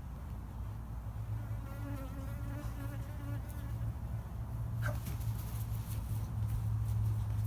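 Honeybees buzzing around a swarm, with one bee's wavering buzz passing close for a couple of seconds near the start. A few sharp clicks come in the second half.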